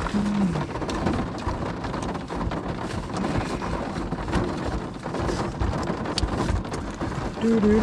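Rain falling on a car roof, heard from inside the car as a dense, steady patter. Close-by rustling and knocks of gear being handled are mixed in.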